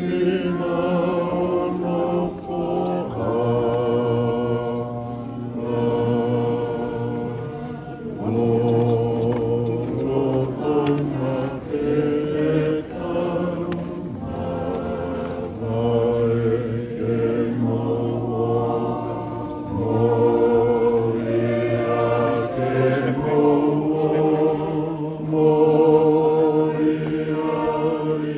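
A choir singing slowly in harmony, holding long chords with vibrato that change every couple of seconds.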